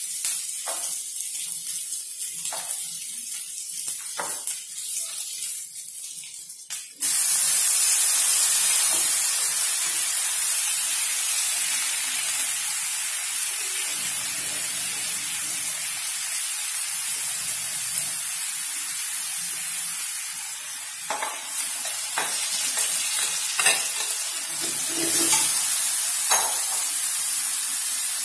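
A few quiet clicks and rustles, then, about a quarter of the way in, a loud sizzle starts suddenly as broken wheat (daliya) fries in hot oil with onions in a non-stick wok and runs on steadily. Near the end, a spatula stirring the grain clicks and scrapes against the pan.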